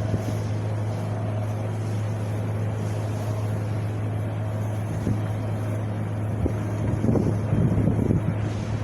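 Wind blowing steadily over a microphone, with a constant low hum underneath, gusting stronger about seven seconds in.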